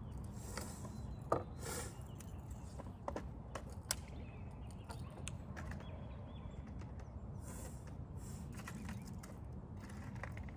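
Footsteps and a few scattered clicks and knocks over a steady low rumble.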